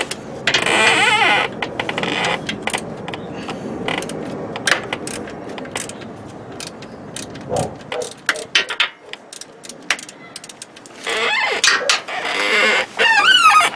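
Ratchet wrench clicking in short, irregular runs as it loosens the starter motor mounting bolts on a 2006 Ford F-150's 4.6 V8. Louder stretches near the start and again near the end carry a wavering squeal.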